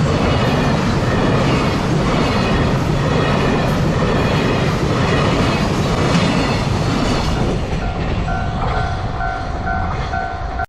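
A freight train's wagons rumble and clatter over the rail joints at close range as they pass through a level crossing. In the last few seconds the train noise eases and the crossing's warning bell comes through, ringing in steady, evenly repeated dings.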